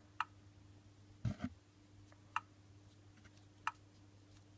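Sonic screwdriver universal remote in quiet control mode, giving short sharp clicks in place of sound effects: three clicks spread over a few seconds, with a soft double knock of handling about a second in.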